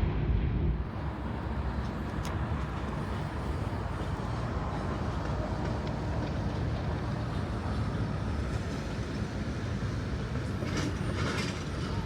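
Steady low rumble of a vehicle under way, with a few faint clicks near the end.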